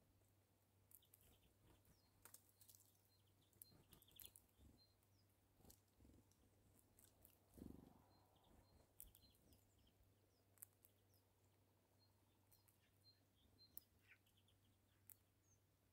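Near silence with faint, irregular clicks of a red squirrel nibbling and cracking seeds on a feeder board, and a soft thump about halfway through. Faint bird chirps in the background.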